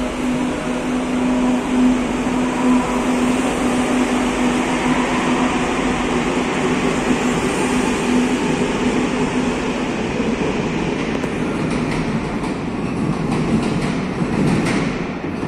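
Madrid Metro 2000A-series electric train pulling out of an underground station. A steady motor hum sits over the rumble of wheels on rail and drops away after about nine seconds. A run of clicks from the wheels over the track comes as the last cars pass, and the sound starts dying away into the tunnel at the very end.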